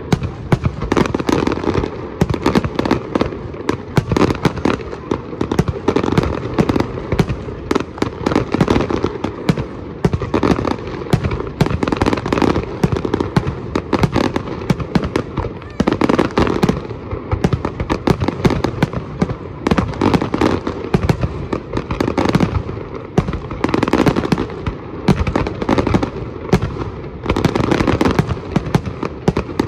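Fireworks display: a continuous barrage of aerial shell bursts and crackling, the bangs coming several times a second without a break.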